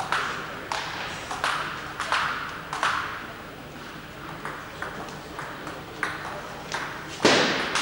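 Celluloid table tennis balls clicking off bats and tables at irregular intervals, each click trailing into the echo of a large sports hall; the loudest hit comes near the end.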